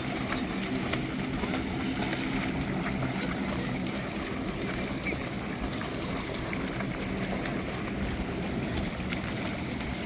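Water splashing and gurgling around small boats being raced, with scattered small clicks and a faint steady low hum underneath.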